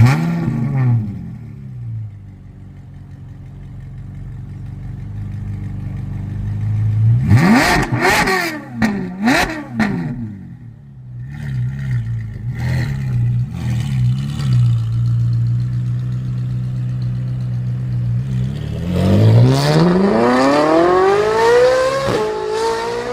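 Ferrari 458 Italia's V8 idling between revs. It is blipped up and down several times in quick succession about eight seconds in, then revs up in one long steady climb from about nineteen seconds in, with a short dip in pitch near the end.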